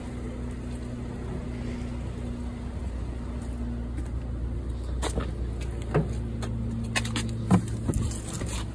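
A car engine idling steadily, with a few sharp clicks and knocks in the second half.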